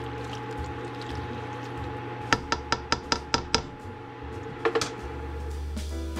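A spoon stirs thick, chunky chili in a stainless steel stockpot, then raps about seven times in quick succession on the pot, with two more knocks shortly after, over a steady low hum.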